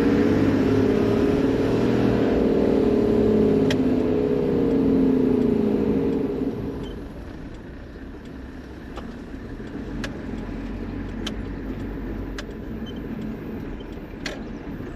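Toyota Land Cruiser HZJ78 with its 4.2-litre six-cylinder diesel, driving, engine and road noise together. It is loud and wavering in pitch for about six seconds, then eases to a quieter roll with scattered light clicks.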